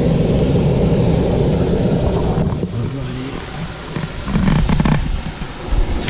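Loud low rumbling noise on a handheld camera's microphone, steady at first and then uneven, with a few short knocks as the camera is moved about over the rocks.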